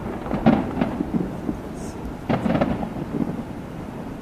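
Aerial fireworks shells bursting, a run of deep booms with rumbling echoes, in two clusters: one about half a second in and another around two and a half seconds in.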